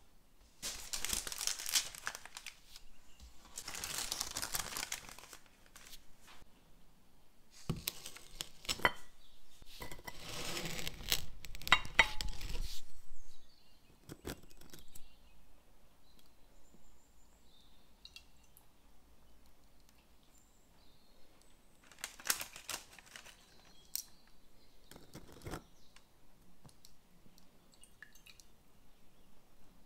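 Parchment (baking) paper being pulled, torn and crinkled in several rustling bursts through the first half. Then quieter light clicks and taps, with two more short rustles later.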